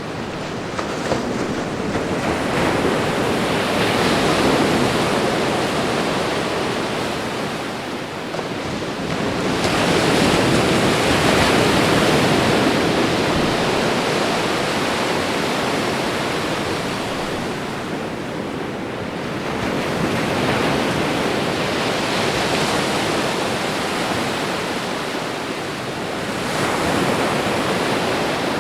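Ocean waves breaking and washing on a shore, the surf swelling and easing every several seconds.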